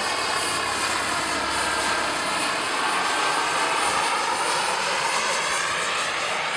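Radio-controlled scale model helicopter built as a Bell UH-1 'Huey', in flight: a steady whine from its drive and rotors with many overtones. It grows louder towards about four seconds in, and its pitch sinks slightly as it passes.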